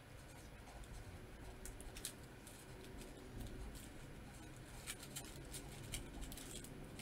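Faint scratching of a marker pen writing on a plastic-covered canvas, with a few light ticks as the pen lifts and touches down.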